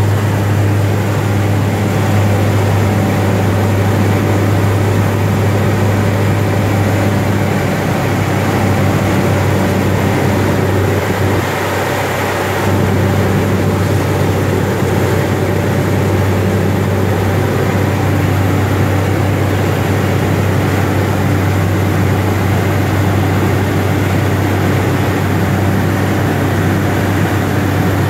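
The GE H80 free-turbine turboprop of a DHC-3 Otter floatplane running, heard inside the cockpit: a loud, steady drone with a strong low hum and a thin high whine over it. The drone dips slightly for about a second around twelve seconds in.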